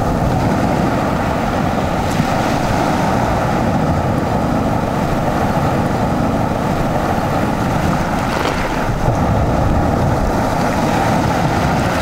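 Steady rush of sea surf breaking on the shore, mixed with wind rumbling on the microphone.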